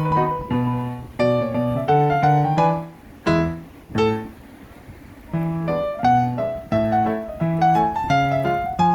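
Background piano music: struck piano notes over a bass line, pausing for about a second and a half midway before resuming.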